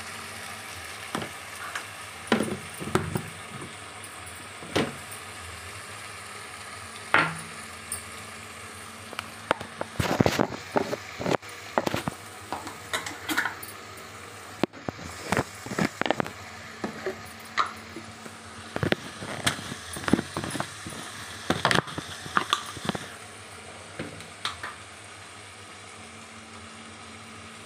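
Onion and tomato masala sizzling in a kadhai, with a wooden spatula stirring and scraping against the pan, giving irregular clicks and knocks over the steady sizzle.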